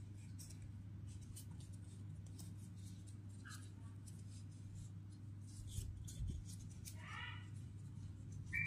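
Steady low hum with faint scattered ticks, and a short high-pitched call about seven seconds in.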